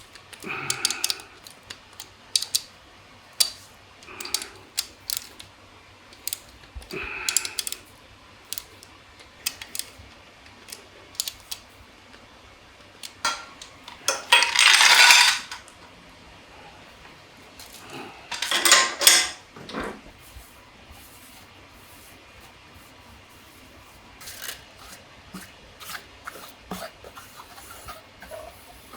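Small metal engine parts and hand tools clinking and tapping against each other and a bench during engine work, in scattered sharp clicks. Two longer bursts of noise come about halfway through, the second a few seconds after the first.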